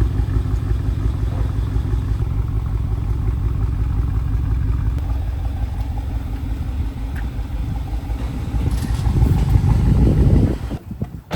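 BMW 650i's V8 engine running at idle with a steady low pulsing; near the end it grows louder for about two seconds, then stops abruptly.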